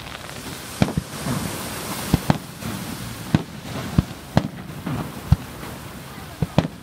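Aerial fireworks shells bursting: about nine sharp bangs at irregular intervals, some in quick pairs, over a steady background hiss.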